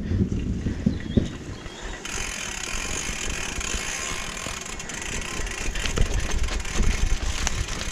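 Mountain bike ridden down a dirt single track: knocks and rattles of the bike over bumps, then a steady rushing noise of riding from about two seconds in.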